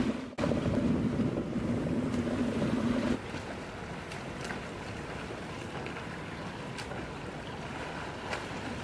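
Water splashing from a swimmer's freestyle strokes in an outdoor pool, with wind on the microphone. A steady low hum runs under the first three seconds, then the sound drops to quieter splashing with a few light slaps.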